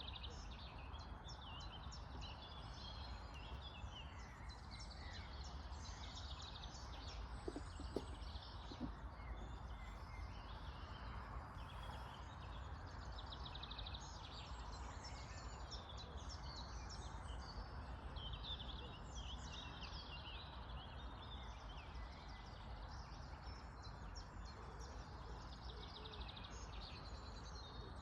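Several birds chirping and calling back and forth without pause over a low steady outdoor rumble, with a few faint knocks about eight seconds in.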